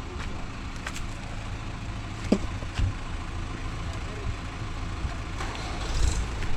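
Diesel engine running steadily with a low rumble, with a few light clicks and a brief falling squeak about two seconds in.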